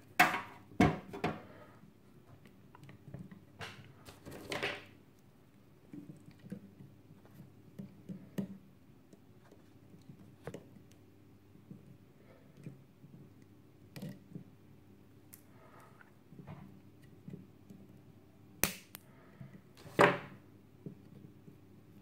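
Scattered small clicks and taps of hands working on a small circuit board with side cutters, with a few louder sharp clicks near the start and near the end.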